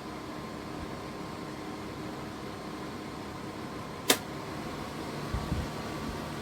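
Cecotec EnergySilence 790 Skyline tower fan running with a steady hum. A single sharp click comes about four seconds in, followed by a few soft low thumps.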